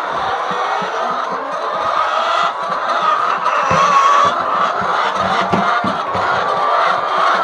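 A large flock of laying hens clucking and calling all at once, a dense, continuous din of many overlapping voices.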